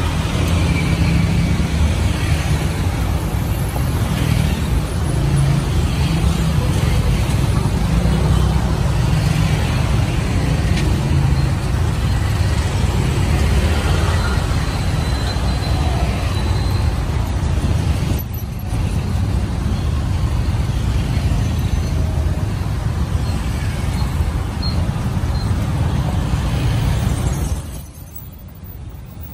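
Steady street traffic rumble with voices in the background, which drops away suddenly near the end.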